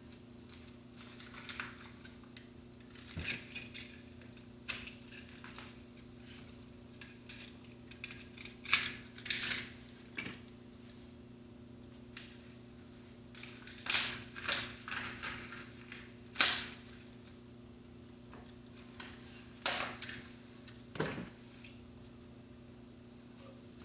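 Packing wrap being crumpled and pulled off a new bicycle's handlebars and fork: irregular crinkling and rustling with a few sharp snaps, over a low steady hum.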